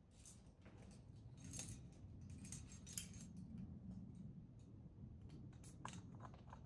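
Faint, intermittent clinking and rustling of climbing gear and rope being handled at the belay, with a few sharper clinks near the end.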